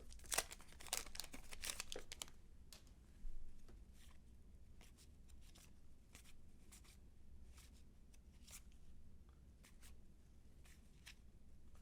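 A baseball card pack's wrapper being torn open, with crinkling in the first two seconds and a further burst about three seconds in, then faint scattered clicks and rustles of cards being handled.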